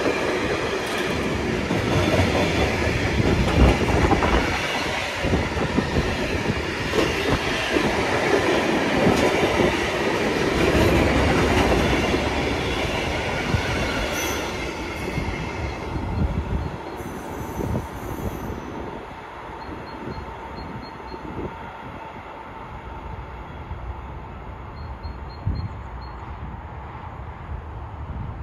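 Long intermodal freight train of container and trailer wagons rolling past close by: a steady rumble and clatter of wheels on rails. It fades after about halfway as the last wagons pass and the train draws away.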